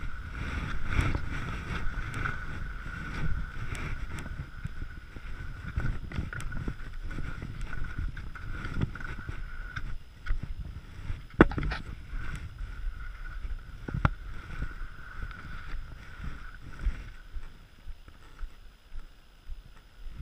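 Skis running and scraping over groomed snow during a downhill run, with wind buffeting the camera microphone and a steady thin whistle underneath. Two sharp clacks come about eleven and a half and fourteen seconds in.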